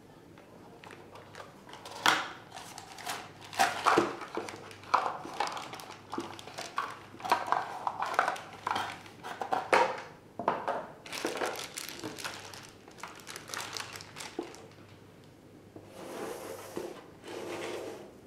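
Unboxing handling noise: plastic wrap crinkling and the keyboard knocking and rubbing against its cardboard and foam packaging as it is lifted out. Irregular knocks and rustles, with two short rustles near the end.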